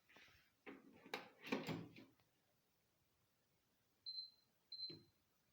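Knocks and clatter of a microwave oven's door and a cup of water being handled, then two short high beeps from the microwave's keypad as the time is set.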